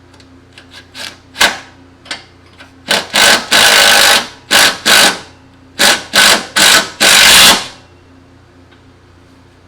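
A hand-held power tool run in a string of short trigger bursts, with one longer run in the middle. It is most likely an impact gun being used on the tank mount's bolts.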